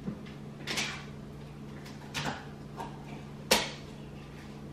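A few scattered knocks and clatters of things being handled in a home, four in all, the loudest about three and a half seconds in, over a steady low hum.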